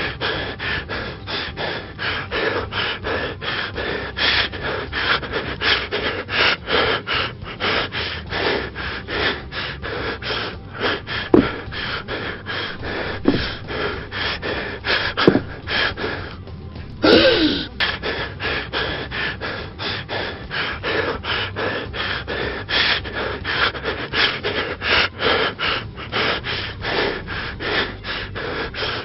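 Rapid, rhythmic gasping breaths made by a person's voice, about three to four a second and unbroken, with a short falling groan about seventeen seconds in.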